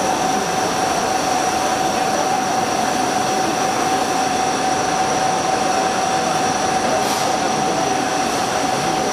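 CNC turning centre machining a metal part under flood coolant: a steady hiss of coolant spray over the running machine, with a steady high whine.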